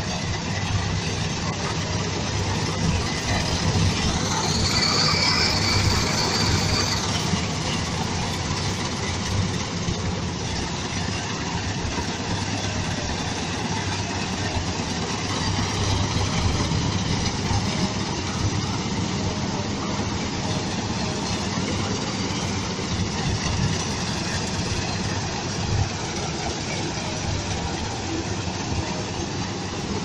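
Combine harvester running steadily while it cuts and threshes a dry standing crop, its diesel engine and machinery making a continuous mechanical din. A high whine rises over it for a few seconds near the start.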